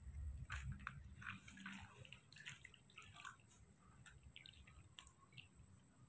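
Faint water splashing and dripping as a newborn baby monkey is washed by hand in a plastic basin, a little louder in the first second or so.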